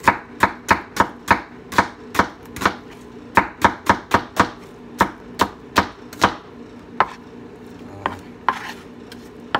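Chef's knife slicing onion on a plastic cutting board: sharp knocks about three a second for the first six seconds or so, then a few scattered strokes.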